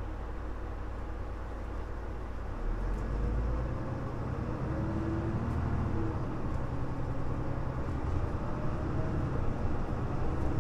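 Cabin sound of a Mitsubishi Fuso LKG-MP37FM city bus's diesel engine, running steadily at first, then pulling harder about two and a half seconds in as the bus accelerates, with a rising whine and engine note.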